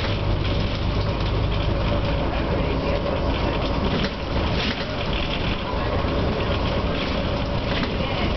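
Cabin noise of a NABI 416 diesel transit bus under way: a steady low engine drone and road noise, with a thin, steady whistling tone running through it. The whistle is the strange noise the rider hears coming from the rear of the bus.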